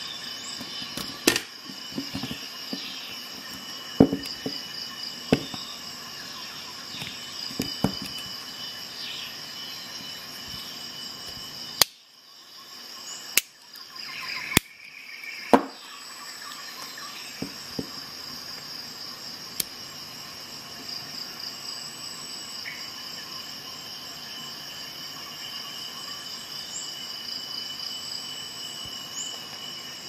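Sharp metallic clicks of a steel multi-tool and a digital caliper being handled, about a dozen of them, mostly in the first half. Under them runs a steady, high-pitched pulsing chirr.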